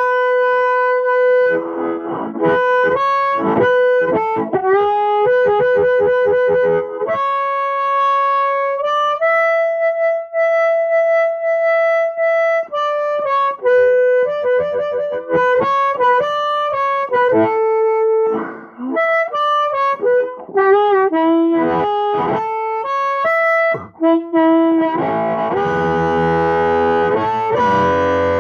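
Harmonica played through a Hohner Harp Blaster microphone into a Roland Cube Street amplifier: a run of single notes with bent, sliding pitches, a long held note about ten seconds in, and a full, rough chord near the end. The amp's bass and gain are set high, which the player suspects may be too much.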